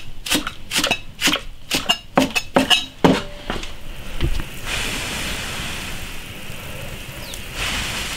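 Heavy cleaver chopping garlic sprouts on a wooden stump chopping block, about three sharp chops a second for roughly three seconds. Then a wok of water at a rolling boil with sliced beef tripe in it: steady bubbling and hiss.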